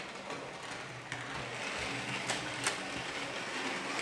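Märklin model train running on metal track: a steady motor whirr and rolling noise with a low hum underneath, and two sharp clicks a little past halfway.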